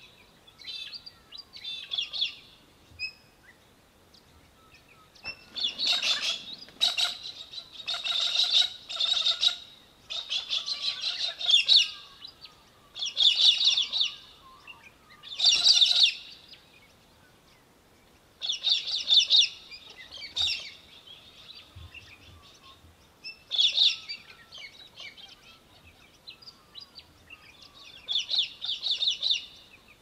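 Australian Hobby (little falcon) giving repeated bursts of rapid, high chattering calls, each burst one to two seconds long with short pauses between, loudest in the middle stretch.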